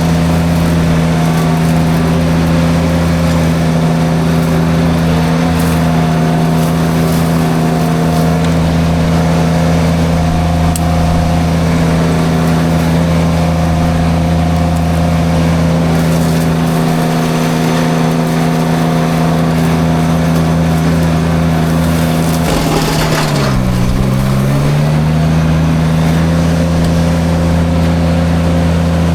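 Derette V1000 mini skid steer running steadily at high throttle with its forestry drum mulcher spinning. About two-thirds of the way in, a burst of chewing noise comes as the mulcher bites into brush, and the engine pitch sags under the load, then recovers within a couple of seconds.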